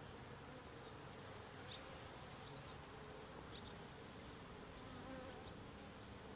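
Honey bees buzzing faintly in a steady low hum from an opened mating nuc, with a few faint light clicks.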